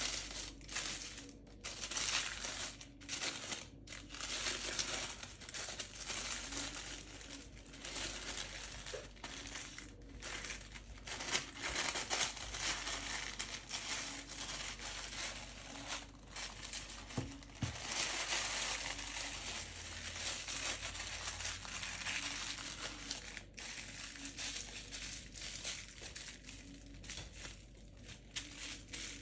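Tissue paper crinkling and rustling in irregular bursts as a candle is wrapped in it by hand, with the crackle of kraft wrapping paper being handled.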